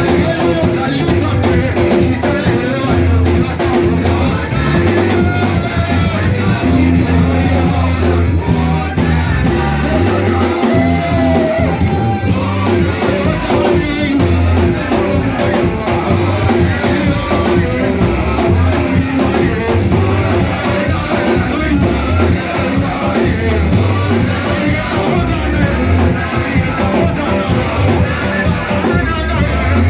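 Live church praise band playing an upbeat song with bass, electric guitar and drum kit, with singing over it.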